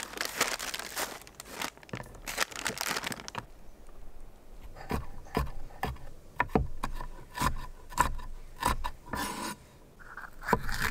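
Knife cutting vegetables on a cutting board: a stretch of crunchy scraping cuts, then a run of sharp chops about two a second.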